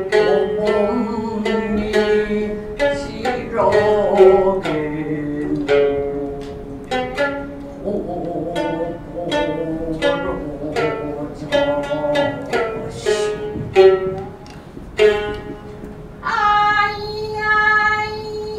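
Shamisen playing a run of plucked, ringing notes as the instrumental accompaniment to joruri puppet theatre. Near the end a high, held singing voice comes in over it.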